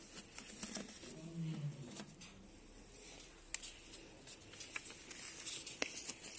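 Faint rustling and light ticks of sheets of paper being handled and shuffled, with a soft murmured voice in the first couple of seconds.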